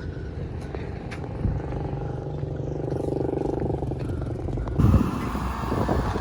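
A motor vehicle's engine running steadily, with a short loud thump about five seconds in, after which there is more hiss.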